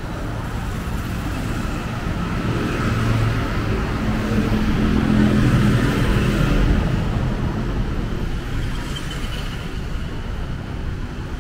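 City road traffic: steady engine and tyre noise, with one vehicle's engine growing louder toward the middle and fading away near the end as it passes.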